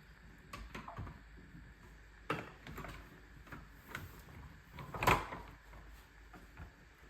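Scattered clicks and knocks of a window blind's headrail and mounting brackets being handled and fitted, the loudest knock about five seconds in.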